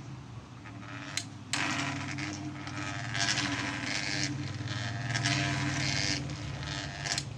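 Faulty pedestal fan motor running slowly with a low droning hum; a louder rushing noise starts about a second and a half in and swells and fades. The slow running and drone are the sign of a motor fault.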